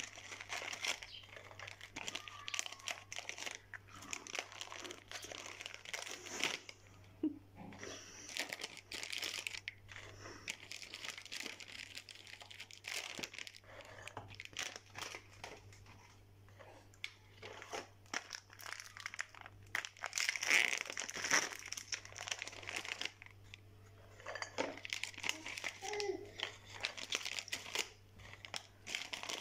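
Plain square Ülker biscuits being shuffled by hand on a plate: a dry, crisp rustling and crinkling with many small clicks, coming in clusters. A faint steady hum lies beneath.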